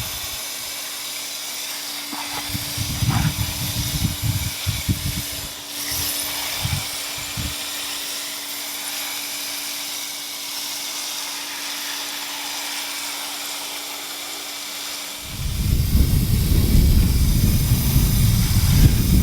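Steady outdoor hiss with a faint low hum and a few short bumps of handling early on, then wind buffeting the microphone from about fifteen seconds in.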